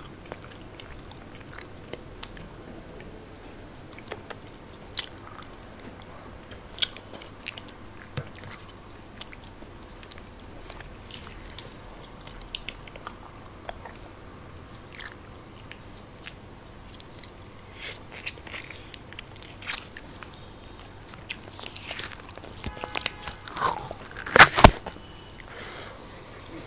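Close-miked eating: scattered bites, crunches, chewing and mouth clicks on snacks, with a louder cluster of noises near the end.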